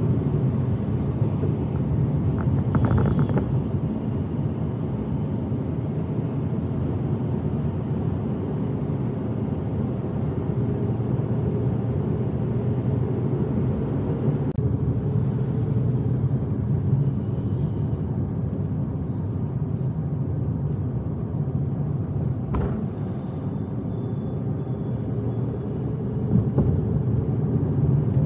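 Steady low rumble of a car driving through city streets: engine and tyre noise. There is a brief higher sound about three seconds in, and two sharp clicks later on.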